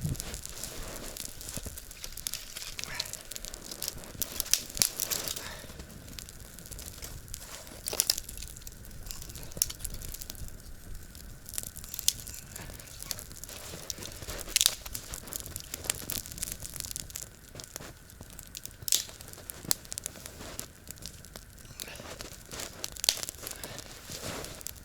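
Dry twigs and kindling snapping and rustling as they are broken and laid for a small campfire, with irregular sharp cracks scattered throughout.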